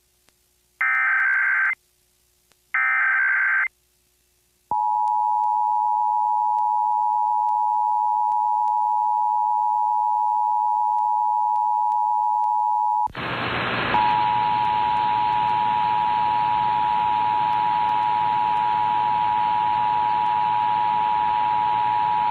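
Emergency Alert System broadcast over FM radio: the last two bursts of the digital SAME header, each about a second long, encoding a National Periodic Test. After a short silence comes the EAS two-tone attention signal (853 and 960 Hz), a steady dual tone held to the end. About thirteen seconds in, a hiss of radio static rises under the tone.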